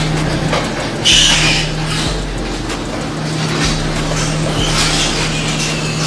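Steady low machine hum, with short high-pitched piglet squeals about a second in and again around five seconds.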